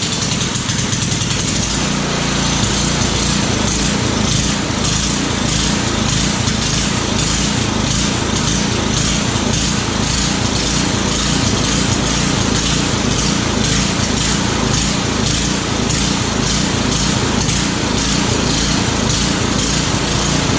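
Ariens Path Pro snowblower's small single-cylinder engine running steadily with the choke on, freshly started after its carburetor was refitted; loud and close.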